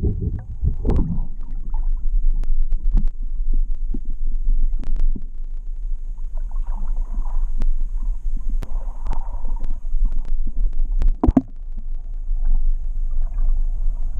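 Water heard through a camera held underwater in a pond: a muffled low rumble with scattered clicks and knocks, and a louder knock about eleven seconds in.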